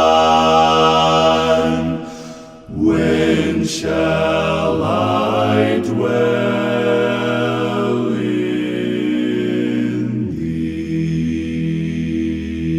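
Church singers singing a hymn a cappella, several voices in harmony holding long chords, with a brief breath-like dip about two seconds in.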